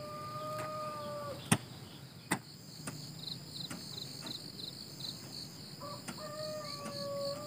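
A hoe chopping into loose soil, a few sharp thuds spaced about a second apart. Under it runs a steady pulsing chirp of insects. Twice a long, held, whistle-like tone sounds in the background.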